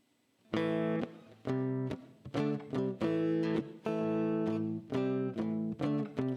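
Guitar playing the intro of a song: rhythmic strummed chords, each cut short, coming in about half a second in.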